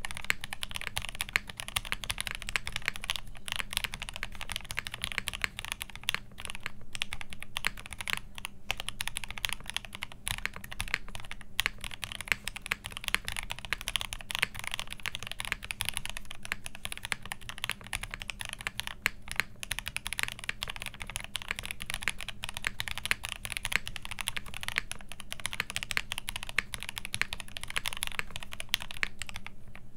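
Fast, steady typing on a Z60 Evolve custom mechanical keyboard with lubed and filmed Banana Split linear switches, an FR4 plate, GMK WoB keycaps and the included case foam: a dense stream of keystroke clacks with a few brief pauses.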